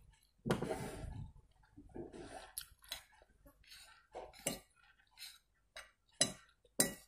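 Metal spoon clinking and scraping against a bowl of noodle soup, with several sharp clinks spread through. There are softer eating noises in between, the longest about half a second in.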